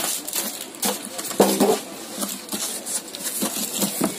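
Plastic wrapping crinkling and a cardboard box rustling and knocking as a wrapped printer is lifted out of its packaging and the box flaps are handled.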